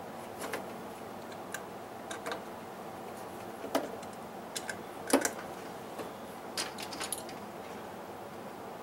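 Scattered light clicks and taps, about ten irregular ones, from handling speaker wires and fitting their keyed connectors onto a speaker's terminals; the sharpest comes about five seconds in.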